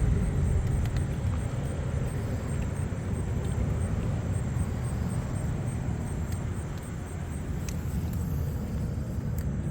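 Steady low rumble with a faint hiss over it, and a few faint clicks.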